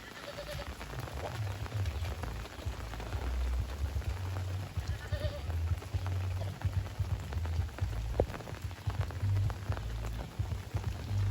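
Steady rain falling, with many small drop ticks over a low rumble. Twice, near the start and about five seconds in, a short faint bleat-like animal call sounds through it.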